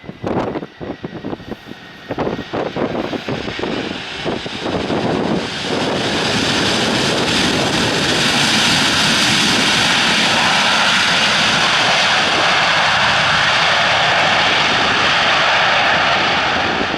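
Wind buffeting the microphone, then from about five seconds in the loud, steady noise of a landing aircraft's engines passing close by.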